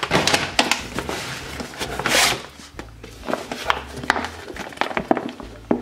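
Cardboard shipping box and stiff plastic MRE pouches being handled: rustling, crinkling and light knocks, with a loud rustle about two seconds in.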